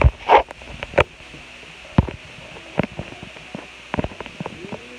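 Handling noise from a phone being moved and set up on a table: a short rustle near the start, then scattered knocks and bumps every second or so.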